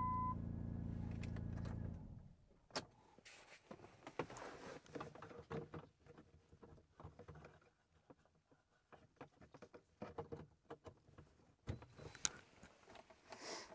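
A Dodge Journey's engine idling with a low steady hum cuts off about two seconds in, just after a short dashboard chime ends. Faint clicks, knocks and rustling follow as the OBD2 scan-tool cable is plugged in under the dash.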